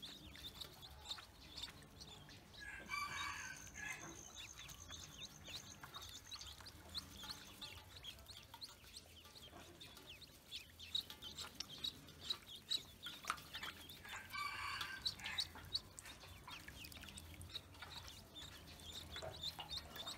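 A brood of ducklings peeping continuously in short, high chirps, with a louder chicken call standing out twice, about three seconds in and again around fifteen seconds.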